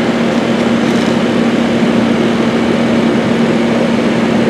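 Outdoor heat pump unit running close up: a steady hum with one constant low tone under an even rush of condenser-fan air.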